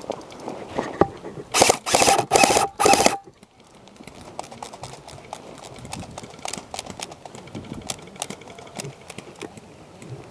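Airsoft electric gun (AEG) firing four short bursts in quick succession, each with a gearbox whine, starting about a second and a half in. After them come only faint scattered ticks and rustling.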